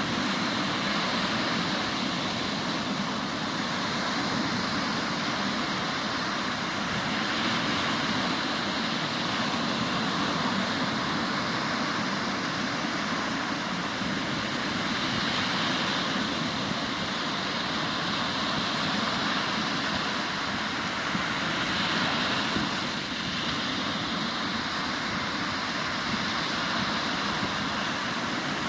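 Sea surf washing on the shore in a continuous, even roar that swells and eases only slightly, the sea stirred up after an intense summer storm.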